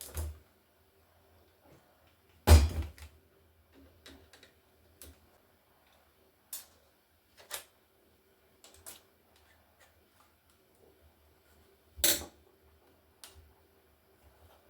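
Knocks and clicks from the plastic case and parts of an old Toshiba laptop being handled and worked apart. Three loud knocks come at the start, about two and a half seconds in and about twelve seconds in, with lighter clicks between.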